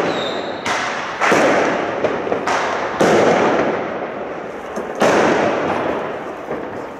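Fireworks going off: about five sharp bangs at uneven intervals, each trailing off in a long echoing tail.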